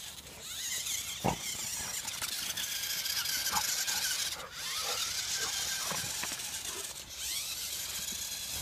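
Electric motor of a radio-controlled monster truck whining high as it revs up and down, with a few short sharp squeaks over it.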